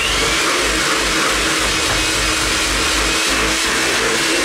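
Electric kitchen mixer switched on and running steadily at one speed, mixing cake batter; loud, and starting abruptly right at the start.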